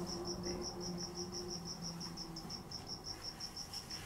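A cricket chirping in a steady, rapid train of short high pulses, about seven a second. Under it, a low steady hum fades out about two seconds in.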